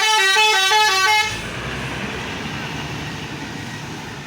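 Bus telolet horn: a set of tuned air horns playing a quick stepping tune of a few alternating notes, which cuts off about a second in. Vehicle and road noise from the passing bus carries on after it.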